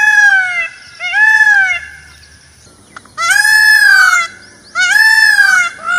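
Indian peafowl calling: four loud calls, each an arched cry that rises and then falls in pitch. The third call is the longest, about a second.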